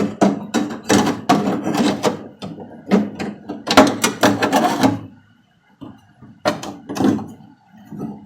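Pieces of sheet steel clanking and scraping against each other as they are handled and fitted together: a dense clatter for about five seconds, then a few separate knocks.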